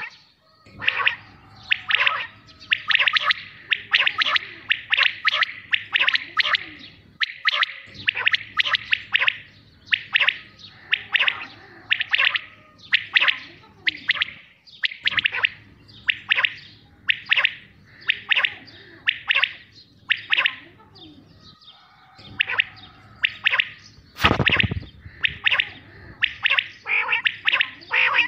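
Common quail calling over and over, short sharp notes coming in quick clusters with brief gaps between them. One short burst of noise cuts in near the end.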